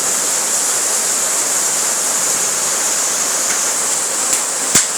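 Rain pouring down in a steady dense hiss, with two sharp taps near the end.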